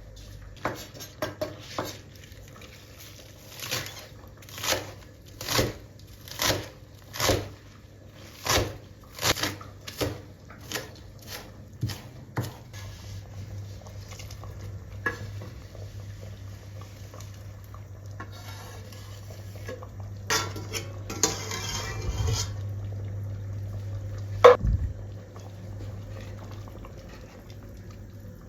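Utensil scraping against a pot or dish in steady strokes, about one a second, then a clatter of dishes and one sharp knock near the end.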